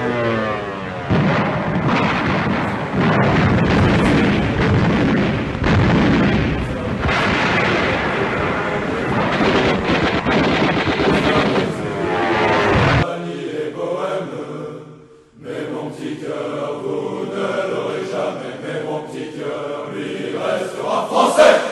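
Rapid anti-aircraft gunfire on an old film soundtrack: a dense, noisy clatter of shots and bangs. About thirteen seconds in, it cuts abruptly to music with sustained notes.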